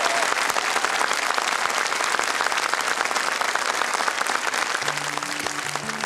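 Studio audience applauding steadily, with dense hand-clapping. About five seconds in, the band's first sustained notes begin underneath as the applause starts to ease.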